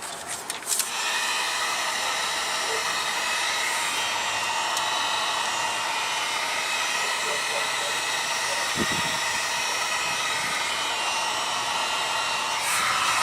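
Electric heat gun switched on about a second in and blowing steadily, its fan giving an even rush of air with a steady whine, used to heat a part before pushing it onto a fitting.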